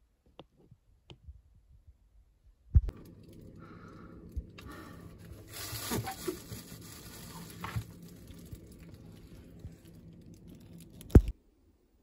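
Hand wiping inside a refrigerator's freezer compartment: rubbing and rustling over a steady low hum, louder and hissier in the middle, set between two sharp knocks, the second near the end.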